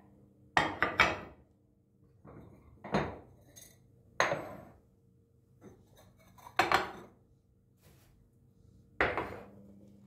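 Terracotta clay bowls and dishes being set down and stacked on a kitchen countertop: hard ceramic knocks and clinks, three in quick succession about half a second in, then single knocks or pairs every one to two seconds.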